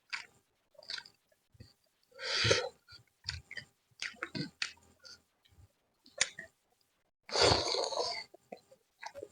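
A person eating close to the microphone: wet chewing and lip smacks with small clicks, and two louder, longer noisy bursts about two seconds and seven seconds in.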